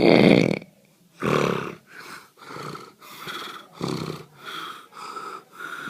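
A man snoring loudly: two heavy rasping snores, then a run of shorter, higher-pitched snoring breaths about twice a second.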